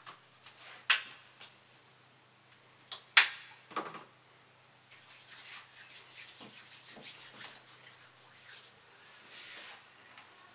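Sharp clicks and knocks of a door and a bathroom cabinet being handled, the loudest about three seconds in, followed by several seconds of soft rustling as things are moved about inside the cabinet.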